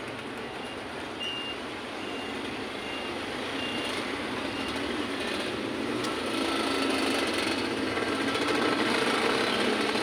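Street traffic at a busy junction: engines of passing trucks, cars and many motorcycles, getting louder through the second half as a stream of motorcycles passes close by. A faint, short high beep repeats in the first few seconds.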